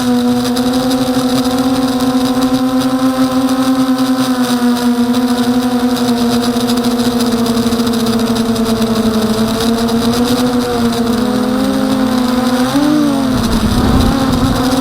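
Emax 250 Nighthawk racing quadcopter's brushless motors and propellers whining in flight at a steady pitch that slowly sags, then swings quickly up and down near the end as the throttle changes.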